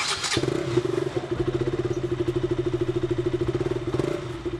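KTM RC200's 199.5cc liquid-cooled single-cylinder four-stroke engine idling through its underbelly exhaust, in a steady, even pulse. A short noisy burst comes in the first half-second.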